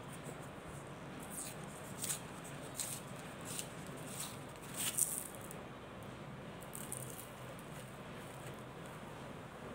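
Paper cup being torn and peeled off a cast puck of mothball crystals: a run of short crackling rips, the loudest about five seconds in, then quieter near the end.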